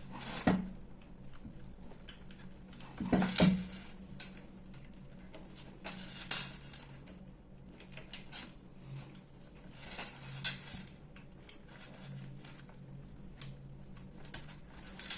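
Small metal and plastic parts of a Wahl Super Taper hair clipper being handled and fitted back together during reassembly: scattered light clicks and clinks, the loudest about a third of a second in, then at about three, six and ten seconds.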